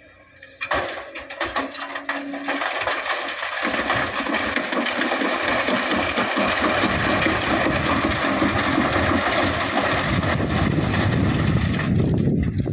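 Excavator at work loading sand into a dump truck: a few sharp knocks about a second in, then a steady, dense noise of engine and moving material that builds louder through the rest.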